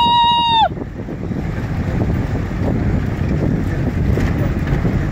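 A loud held high tone cuts off sharply under a second in. It is followed by a steady low rumble and hiss of wind buffeting the microphone.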